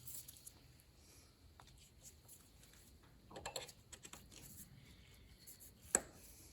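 Faint handling of new spark plug wires at a tractor's distributor cap, with rustling around the middle and one sharp click near the end as a wire is pushed home.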